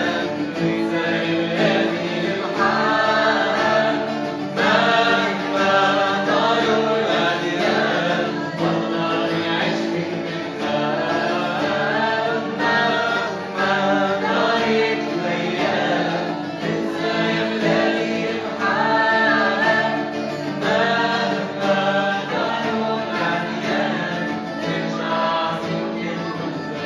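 A woman singing a melody with wavering vibrato on held notes, in phrases a few seconds long, over steady sustained instrumental accompaniment.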